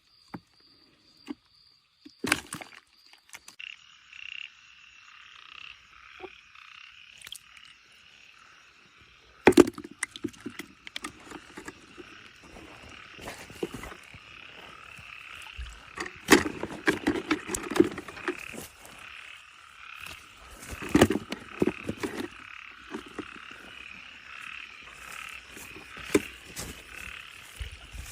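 A dense chorus of frogs croaking, setting in about four seconds in and carrying on steadily. Scattered knocks and rustles of handling sound over it, the loudest about nine and a half seconds in.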